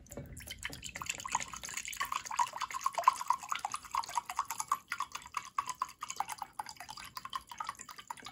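Rubbing alcohol poured in a stream from a plastic bottle into a glass measuring cup, splashing and gurgling steadily as the cup fills; the pour starts about a second in.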